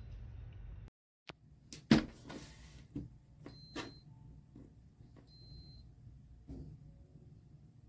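Clicks and knocks of a plastic humidifier being handled, the loudest about two seconds in, with two short high beeps among them. Before that a steady low hum cuts off abruptly about a second in.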